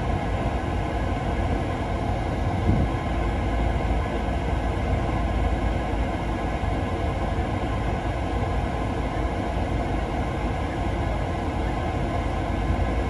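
Steady low rumble of a car on the move, road and engine noise with no breaks.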